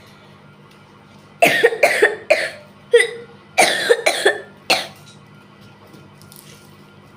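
A person coughing in two quick bouts of several coughs each, about a second and a half in and again around three and a half seconds in, over a faint steady hum.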